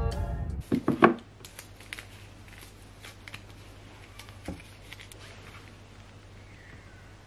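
Background music cuts off, then a few sharp clicks about a second in. After that, quiet room tone with faint handling clicks as a glass-jar candle is picked up and lit with a disposable lighter.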